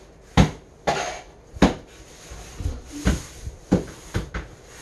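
Sharp knocks on a flat-pack particleboard furniture panel as it is whacked into place, about eight at uneven spacing, the loudest in the first two seconds.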